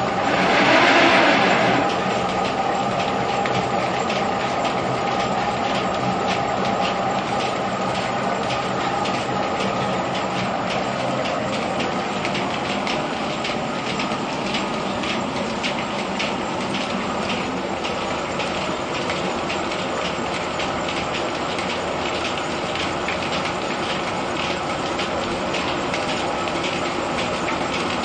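Mill threshing machine running steadily with a steady hum and a dense, rapid rattle. Something is poured into it with a louder rushing burst in the first two seconds.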